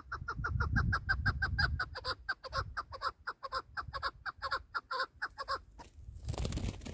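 Chukar partridge calling a fast run of 'chuk' notes, about six a second, which stops about five and a half seconds in. A short burst of rushing noise follows near the end.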